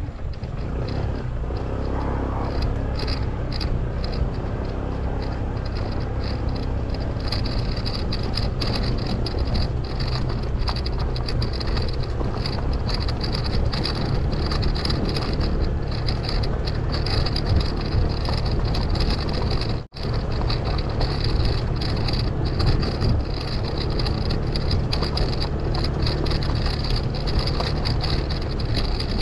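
Honda ADV150 scooter's single-cylinder engine running steadily under load as it climbs a rutted dirt trail, heard as a continuous low drone. The sound cuts out for an instant about two-thirds of the way through.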